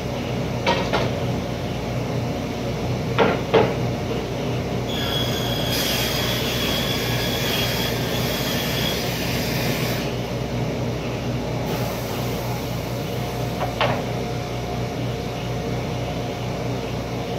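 Table saw running steadily, cutting through a cabinet board for about five seconds in the middle with a high whine and hiss. A few sharp knocks come from boards being handled on the table.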